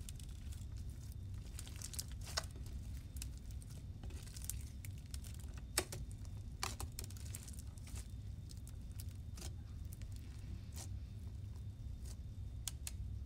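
Hands kneading and folding a sticky, beaded slime mixed with shaving cream on a hard table: scattered wet crackles and clicks as it stretches and tears, over a steady low hum.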